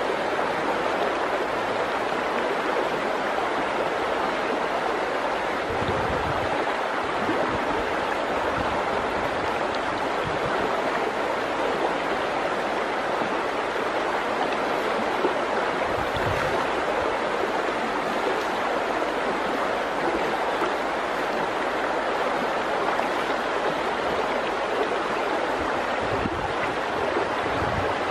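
Shallow, stony river flowing steadily, a continuous rush of water over rocks.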